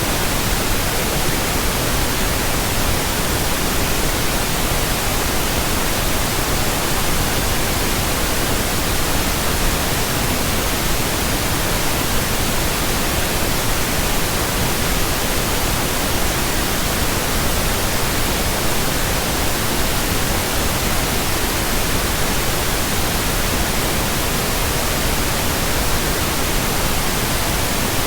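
Steady, unchanging pink noise: an even hiss spread across the whole range from deep rumble to high fizz, with no breaks or variation.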